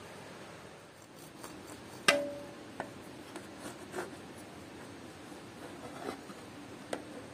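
Kitchen items being handled: one sharp clink with a short ring about two seconds in, then a few lighter knocks and clicks.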